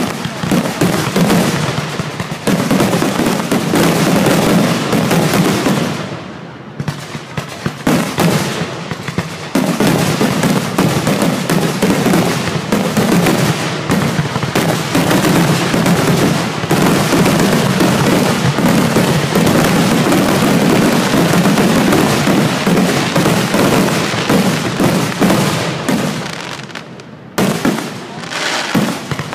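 A dense barrage of aerial fireworks: rapid, overlapping bangs and crackling with hardly a break. It eases briefly about six seconds in and again shortly before the end.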